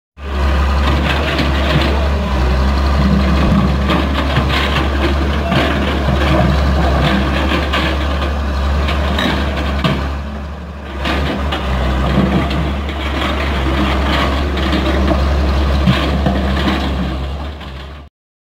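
A vehicle engine running steadily under many short rattles and knocks. It eases off briefly about ten seconds in, then cuts off suddenly near the end.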